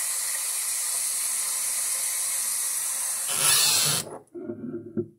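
Bathroom sink faucet running water into a glass bottle: a steady hiss that is shut off about four seconds in.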